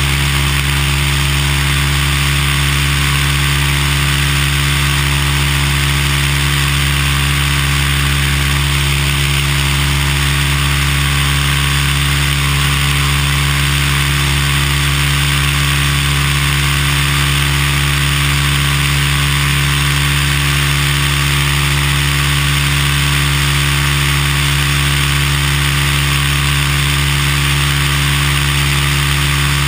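Cessna 172's piston engine and propeller droning steadily in level flight, with a constant hiss over it.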